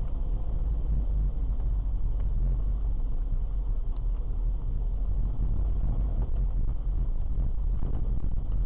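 Steady low rumble of a car driving, engine and tyre noise picked up inside the cabin by a dashcam microphone.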